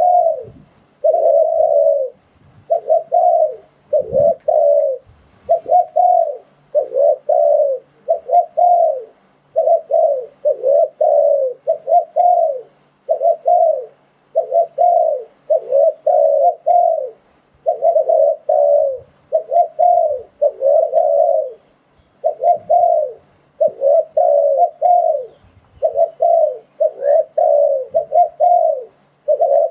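Spotted dove cooing over and over: phrases of low coos, each about a second long, separated by short gaps. It is the male's advertising call, played as a lure to draw wild spotted doves to a trap.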